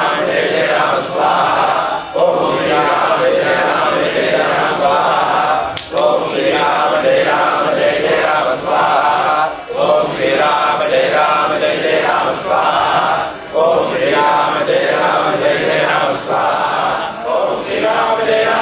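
A group chanting a Hindu mantra in unison, in repeated phrases of about four seconds with a brief breath between each.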